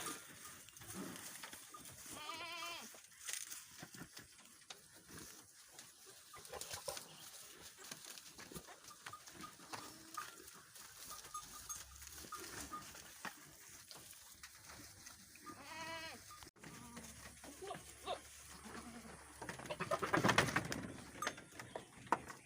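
Goats bleating now and then, with wavering calls about three seconds in and again around sixteen seconds, and a louder burst of sound near the end.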